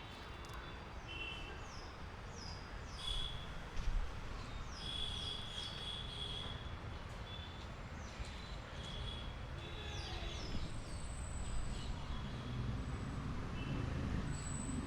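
Birds chirping: short downward-sliding calls and brief high whistled notes, over a low steady background rumble that grows slightly louder near the end.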